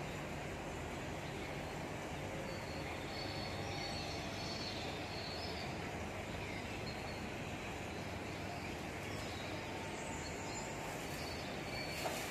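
Steady background noise, with faint high chirps now and then and a sharp click near the end.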